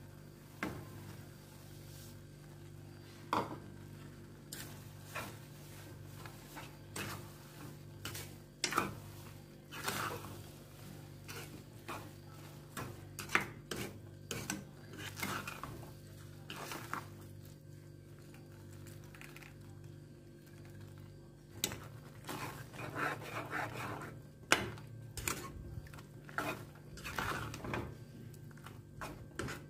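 A spatula stirring and tossing vermicelli in a nonstick pan, with irregular scrapes and knocks against the pan that come thicker near the end, over a steady low hum.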